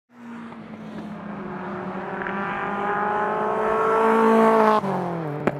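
Racing car engine speeding up, rising in pitch and growing louder, then dropping sharply in pitch and fading as it passes by, just before the end; a sharp click follows.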